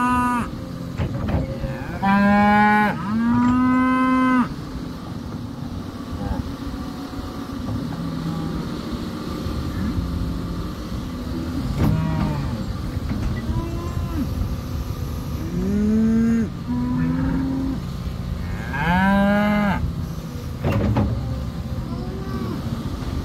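Cat 330F L tracked excavator working its boom and bucket: the engine runs under a steady load while the moving arm gives out about half a dozen loud, drawn-out pitched groans, some rising and some held level, each starting and stopping abruptly.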